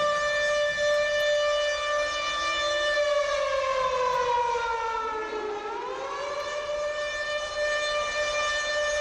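Civil defense (nuclear alarm) siren wailing on a steady high tone; about three seconds in its pitch slides down, then climbs back to the same tone a few seconds later.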